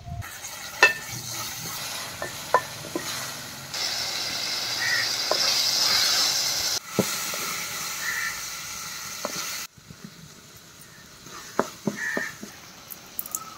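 Onions, tomatoes and curry leaves sizzling in oil in an aluminium pan over a wood fire, stirred with a wooden spatula that scrapes and taps the pan. The sizzle drops to a softer level about ten seconds in.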